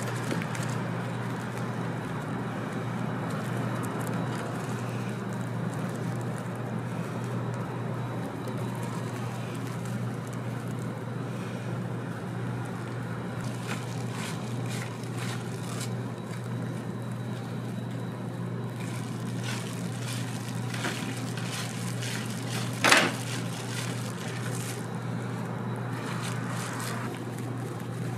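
Street food stall ambience: a steady low hum over constant background noise, with a few light clicks of a metal spatula while cream is spread into a crepe cone, and one sharp, louder knock later on.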